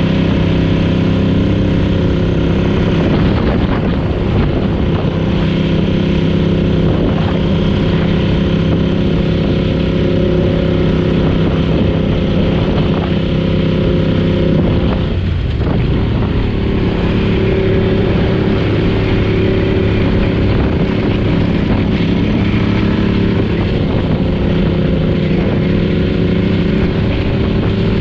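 Vee Two Alchemy motorcycle's V-twin engine running steadily at cruising speed, heard from the rider's seat with wind rush. About halfway through the engine note dips briefly and picks up again, as with a gear change.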